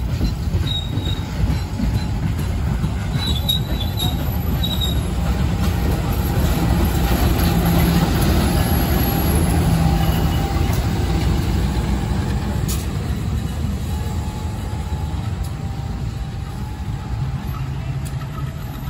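A CC201 diesel-electric locomotive (GE U20C) and its passenger coaches rolling past, the locomotive's engine at its loudest about halfway through as it goes by. Steel wheels rumble on the rails throughout, with a few brief wheel squeals in the first few seconds.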